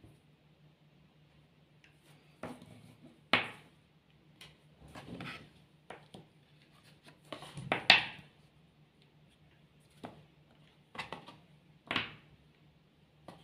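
Plastic domino tiles clicking and knocking as they are picked up, handled and set down on the table, about ten irregular taps with the loudest about eight seconds in.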